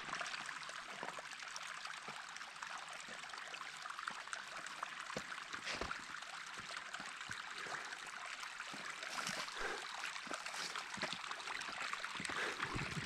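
Rain runoff running steadily over a bare rock slab, an even trickling hiss, with a few faint clicks.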